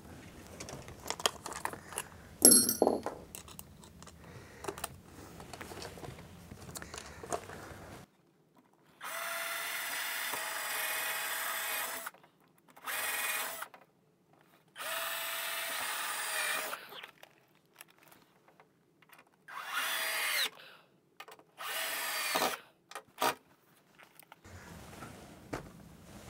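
Cordless drill boring into a pine shelf board in about six bursts, the longest about three seconds, the motor's pitch dropping as some bursts end. Before the drilling there are light clicks and handling sounds.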